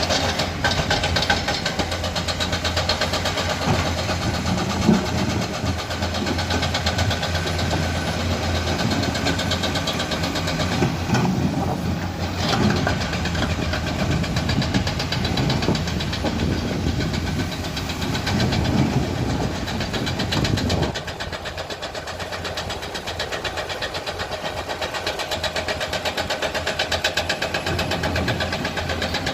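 Komatsu hydraulic excavator's diesel engine working under load while digging and loading rock. About two-thirds of the way through the load eases and the engine settles to a lighter, quieter run.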